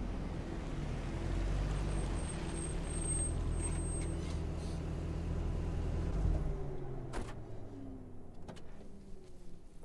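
Ford Crown Victoria police cruiser's engine running low as the car rolls up, cutting off with a low thump about six seconds in. Then come two sharp clicks a second or so apart.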